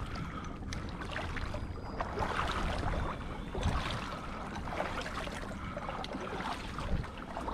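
Water sloshing and splashing with scattered small crackles, over a steady low wind rumble on the microphone.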